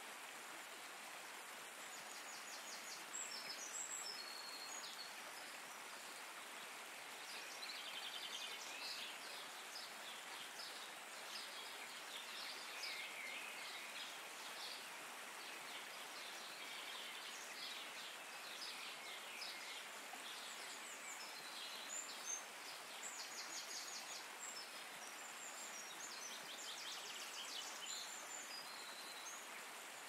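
Steady hiss of running water with many small birds chirping and trilling over it, busiest through the middle and later part.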